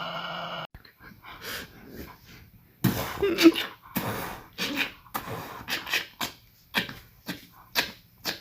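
A steady pitched tone stops abruptly just under a second in. It is followed by a series of short, breathy animal sounds, about two a second.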